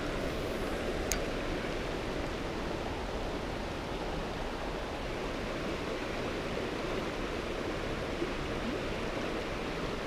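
Steady rushing of a small creek's water flowing over rocks and riffles.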